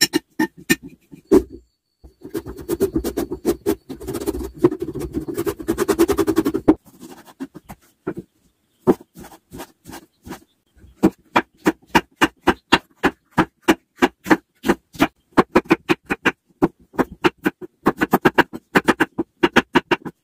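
A spoon stirring raw meat pieces with spice powders on a plate, a wet squishing mash for several seconds. Then a knife chopping on a wooden cutting board in quick, steady strokes, about three a second, cutting tomato and then garlic cloves.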